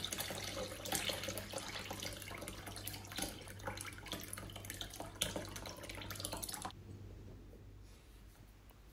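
Homemade pomegranate vinegar pouring in a stream from a glass jar onto a muslin-lined strainer and splashing into the liquid pooled there. The pouring sound cuts off suddenly about seven seconds in.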